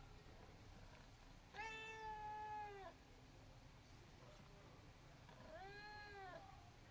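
Abyssinian cat meowing twice: a long, level meow about a second and a half in, then a shorter meow that rises and falls in pitch near the end.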